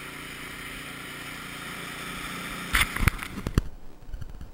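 Ariens Sno-Tek 24 snowblower engine running steadily for about the first three seconds. It cuts off abruptly into a few sharp knocks, then quieter faint clicking.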